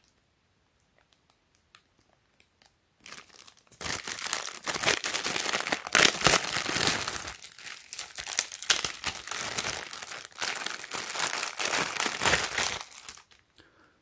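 Thin clear plastic zip-lock bag crinkling and rustling as hands open it and handle it. It starts about three seconds in and stops about a second before the end.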